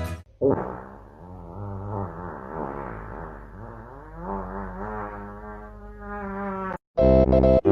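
A continuous buzz whose pitch wavers up and down, starting about half a second in and cutting off abruptly near the end, where music begins.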